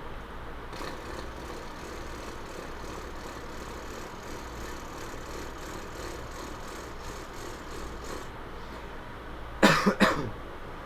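A person imitating an idling car engine with their mouth, a steady breathy rumble. Near the end come two loud, short vocal bursts about half a second apart.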